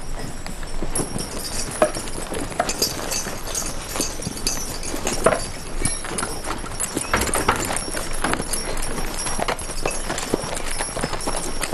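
Hooves of several horses clip-clopping irregularly on a packed dirt street as riders mount and walk them off.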